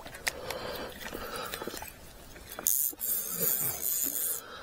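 Hooked fish splashing and thrashing at the surface of a pond, a hissing splash starting about two and a half seconds in and lasting nearly two seconds, with small clicks and rustles of handling before it.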